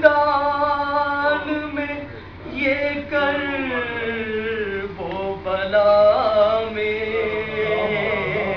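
A man's solo voice reciting an Urdu Salam, a Shia devotional elegy, in a melodic chant without accompaniment: three long sung phrases with held notes and short breaths between them.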